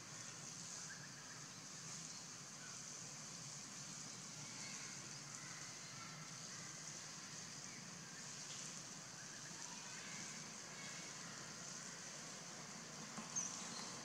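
Faint forest ambience: a steady high hiss with scattered faint short chirps. There is one brief louder sound near the end.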